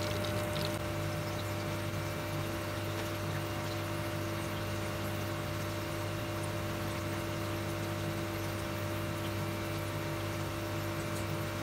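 Steady electric hum of an induction cooktop under a steady hiss of hot oil frying sweet potato chunks.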